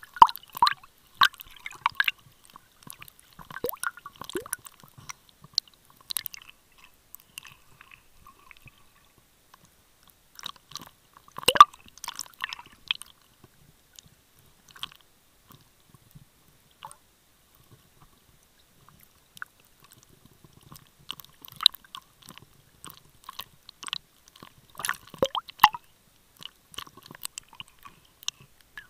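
Water movement and handling noise picked up by an underwater camera: scattered small clicks, crackles and squishy drip-like sounds that come in clusters, with a quieter stretch in the middle.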